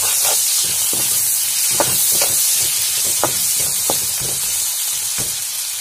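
Sliced onions frying in hot oil in a pan: a steady, loud sizzling hiss with scattered crackles.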